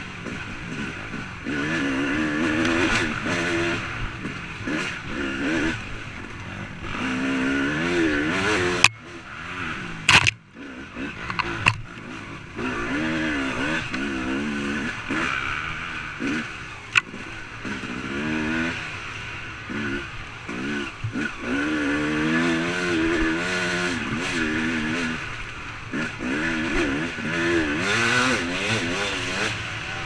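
Dirt bike engine revving up and down with the throttle, heard from a helmet camera. A few sharp knocks break in, the loudest about nine seconds in, and the engine sound drops away briefly around ten seconds in.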